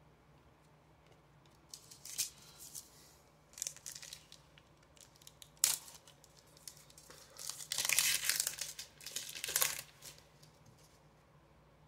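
Foil trading-card pack wrapper being crinkled and torn open, in several short bursts of rustling with the longest and loudest lasting about two seconds near the end.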